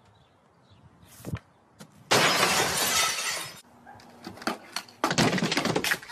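A hockey shot gives a sharp click, and about a second later glass shatters in a loud crash lasting about a second and a half. Near the end comes another loud crash as a pogo stick and a small metal table tip over.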